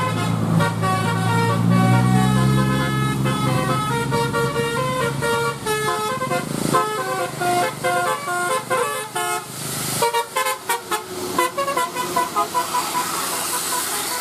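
Indonesian bus telolet horn (Basuri multi-tone air horn) playing a stepping melody of short notes, turning into a fast choppy run of notes about seven seconds in. A low engine note rises under the horn in the first few seconds.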